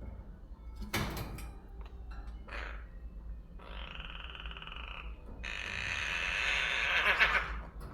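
Young crow giving two long, harsh rasping calls, the second longer and louder, after a couple of short scratchy sounds.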